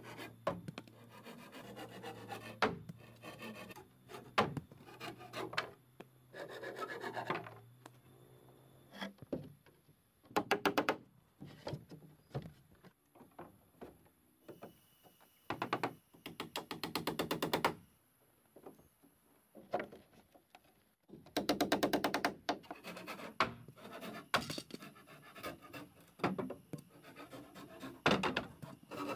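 Wooden boards being handled and worked by hand, wood scraping and rasping against wood in bursts of rapid strokes every few seconds, with quiet gaps between them.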